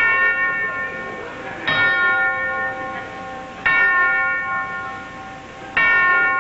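A bell struck four times, about two seconds apart, each stroke ringing on and fading away before the next.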